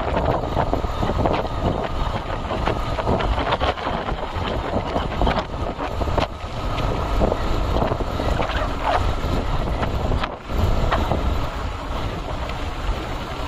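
Loud wind rumble buffeting the microphone of a moving vehicle, in irregular gusts, with a brief drop about ten seconds in.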